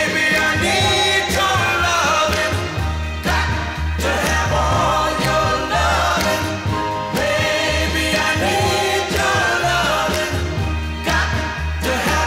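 A 1960s Tamla Motown soul record playing: a singer over a bass line and a steady beat.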